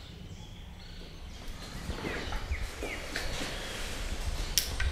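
Quiet room ambience with a few short bird chirps in the middle and a single sharp click near the end.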